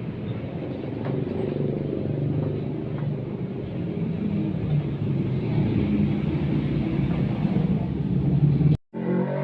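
Yamaha motorcycle engine running steadily with a low rumble. It cuts off abruptly near the end, and guitar music starts.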